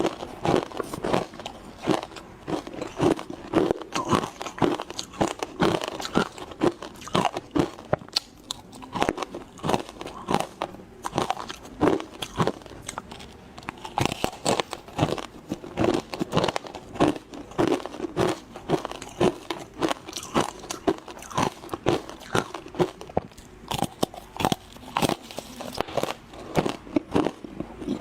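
Frozen matcha (green tea) ice being bitten and chewed in a fast, unbroken run of sharp crunches, several a second.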